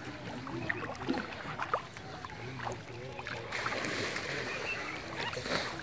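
River water splashing and sloshing as a boy wades and gropes through it by hand, with a denser stretch of sloshing from about three and a half seconds in.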